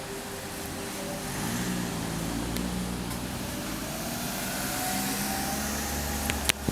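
The last bell tone of a municipal disaster-prevention loudspeaker chime fades out within the first second. Then a motor vehicle's engine hum grows, with a faint whine slowly rising in pitch. Two or three sharp clicks come near the end.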